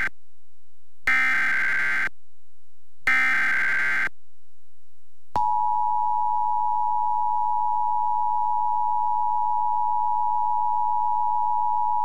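Emergency Alert System SAME header data bursts, a harsh one-second screech of digital tones sent twice more, a second apart, encoding a tornado warning from the National Weather Service. After a short gap, about five seconds in, the steady two-tone EAS attention signal (853 and 960 Hz together) starts and holds.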